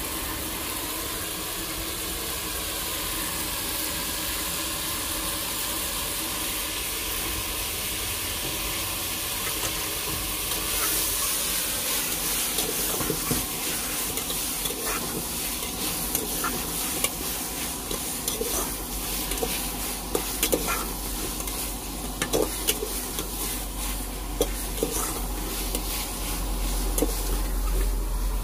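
Chicken frying in a pan with a steady sizzle that gets louder about eleven seconds in. From then on a spatula stirs and scrapes against the pan in irregular clicks, and a low rumble builds near the end.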